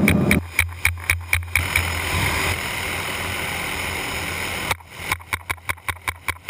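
Helicopter noise heard through an open intercom mic, with a steady low hum. Twice, for about two seconds each, the noise thins and a rapid run of sharp clicks comes through, about four a second.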